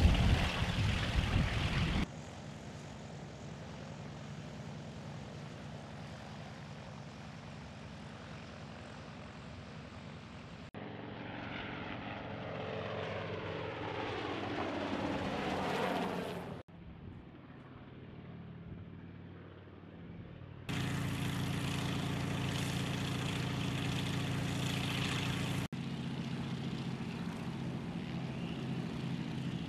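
Sikorsky UH-34 Choctaw helicopter's radial piston engine and rotor running. It is loud and close for the first couple of seconds, then steady in flight, with a sliding pitch as it passes by about halfway. It runs on steadily, with sudden jumps in loudness between shots.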